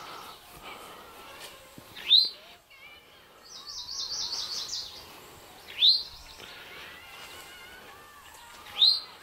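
Songbirds singing: a loud, sharp whistled note that sweeps up and falls away, given three times about three seconds apart, with a fast high trill from another bird in between.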